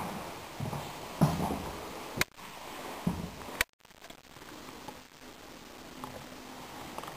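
Footsteps on a laminate floor, irregular soft thumps, with handheld-camera handling noise and two sharp clicks.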